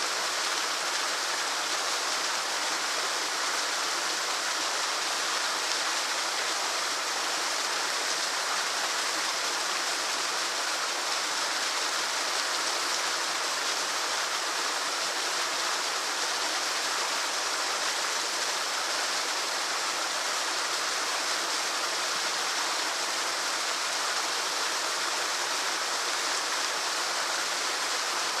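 Medium-sized waterfall pouring into a lake: a steady, unbroken rush of falling water with no pauses or changes.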